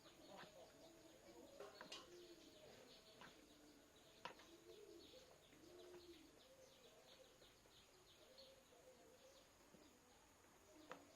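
Faint bird cooing: low calls that rise and fall, repeated through the stretch, with faint chirps and a few sharp clicks.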